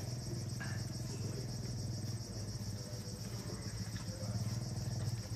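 Steady chorus of insects, a high fast-pulsing drone, over a low steady hum.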